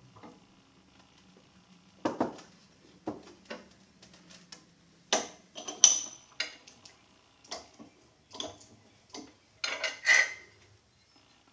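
Small metal parts clinking and knocking: a steel bracket, a nut and hand tools being handled against a bench vise, a dozen or more sharp irregular clinks, loudest about halfway through and again near the end.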